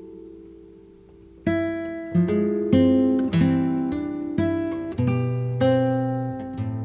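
Background music on acoustic guitar: a chord fades out, then about a second and a half in a run of plucked notes and chords begins, with deeper bass notes near the end.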